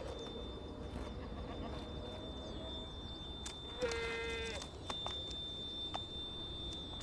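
Alpine ibex bleating once, a short high call about four seconds in, over scattered sharp clicks and a thin steady high tone.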